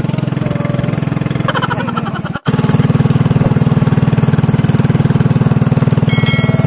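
Small boat engine running steadily at cruising speed, a fast even putter, as the motorized banca travels across the lake. The sound cuts out for an instant about two and a half seconds in and comes back louder.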